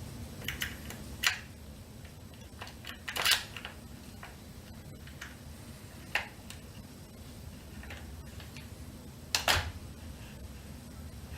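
Scattered sharp clicks and small knocks from handling e-bike parts and tools, about five in all. The loudest comes a little over three seconds in and a quick double knock comes near the end, over a low steady hum.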